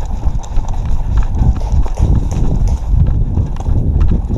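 Running footsteps of an airsoft player carrying the camera, with heavy rhythmic thumps and gear jostling against the microphone.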